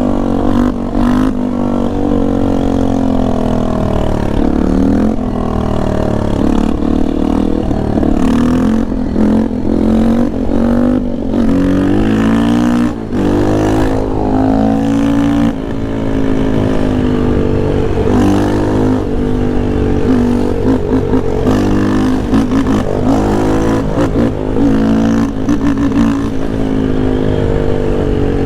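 Yamaha Lander 250's single-cylinder four-stroke engine under hard riding. It revs up and drops back again and again through the gear changes.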